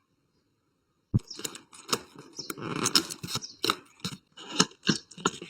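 Close-up packaging being handled and opened: a sharp click about a second in, then a busy run of crinkling, tapping and rustling.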